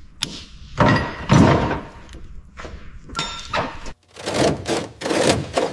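Heavy clunks and knocks of metal car parts being worked on, one with a brief ring, then a run of quicker knocks near the end.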